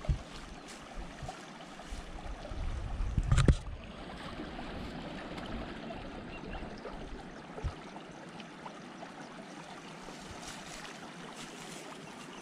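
Steady hiss of moving water and wind. About three seconds in, a short burst of wind buffets the microphone.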